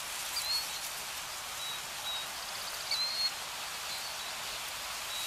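Steady rain-like hiss with short, high bird chirps over it several times.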